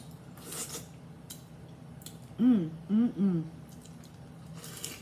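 Crunchy hard-shell taco crackling between the teeth, with a crisp crunch about half a second in and another near the end as a fresh bite is taken. Between them come three short voice sounds that rise and fall.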